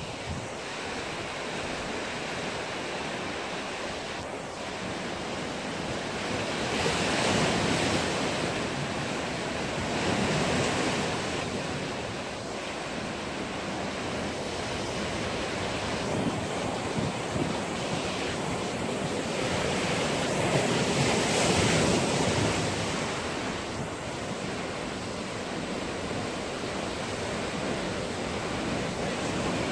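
Ocean surf washing over a rocky shore, a steady rush of noise that swells and ebbs several times as waves come in, with some wind on the microphone.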